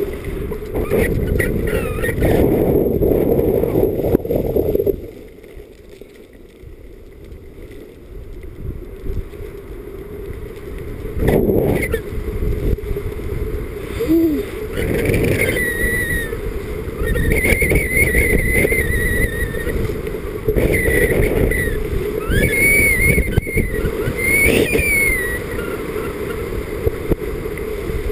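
Wind buffeting an action camera's microphone, with skis hissing and scraping over packed snow during a downhill run. The rushing noise drops away for a few seconds about five seconds in, then picks up again.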